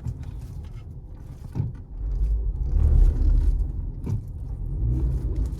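Ford Fusion AWD pulling away slowly at full steering lock, heard from inside the cabin: a low rumble that swells about halfway through. It is the rear drive shuddering under load, a fault the mechanic traces to the rear differential's on-demand coupling.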